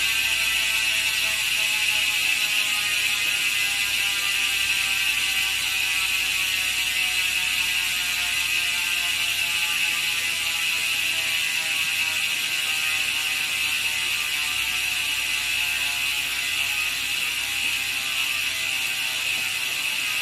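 Speedone Soldier 6-pawl bicycle hub freewheeling: the pawls click over the ratchet fast enough to blend into a loud, steady buzz. The pitch falls slowly and the sound fades a little as the wheel spins down.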